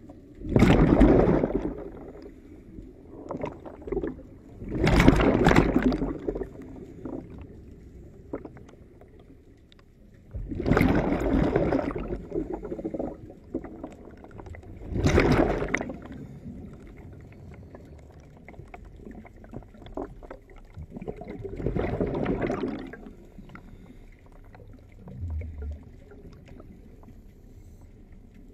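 Water rushing and gurgling around a submerged camera, in loud surges of a second or two every four to seven seconds, with a low wash between them.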